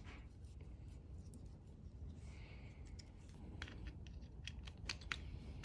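Faint small metal clicks and a brief light scrape as the parts of a Leatherman Wingman multitool are handled during reassembly: the washer and pivot screw are being fitted around the new blade. The clicks cluster toward the end.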